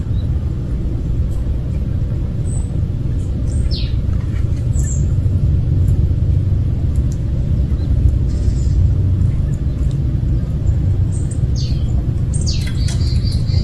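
Steady low rumble, with short falling bird calls about four seconds in and a few more near the end.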